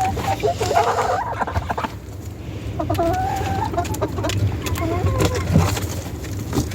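Backyard hens clucking and giving short, drawn-out calls in the coop, several times, over a steady low rumble.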